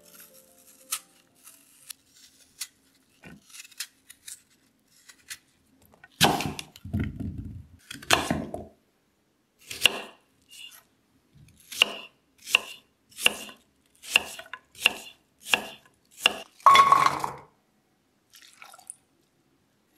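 A kitchen knife peeling and then cutting an apple on a wooden cutting board. Faint small clicks come first, then a couple of loud knocks, then a regular run of sharp knocks about one and a half a second, ending in a louder clatter.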